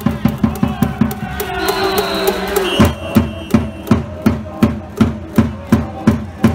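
Cheering-section drums beating a fast, even rhythm of about six beats a second, then from about three seconds in a slower beat of two to three a second, with steady held tones alongside.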